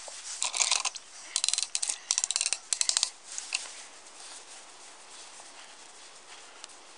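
Cloth rag rubbing over a small wet wire part of an old camp stove. Several quick bursts of scrubbing with light clicks in the first three seconds, then softer wiping.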